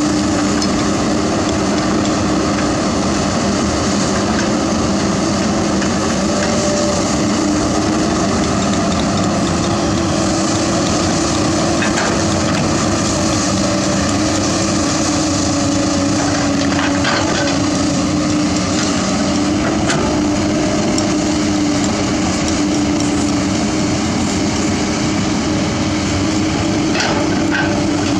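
Komatsu PC200 hydraulic excavator's diesel engine running steadily under load as it digs and swings, with a few sharp knocks of dirt and stones dropping into the steel dump truck bed.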